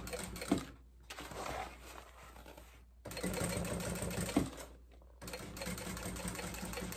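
Sewing machine stitching slowly in several short runs with brief pauses between them, sewing through glued layers of patent synthetic, mesh and lining.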